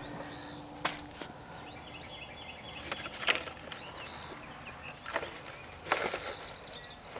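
Scrapes and knocks from a small shovel digging into a compost pile and from plastic nursery pots being handled, about four sharp ones. A bird in the background repeats a short high chirping phrase.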